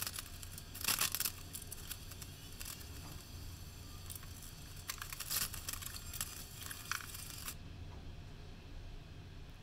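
Faint crackling and scraping noises of tile-setting work, in scattered bursts over a steady low hum; the crackling stops abruptly near the end, leaving only the hum.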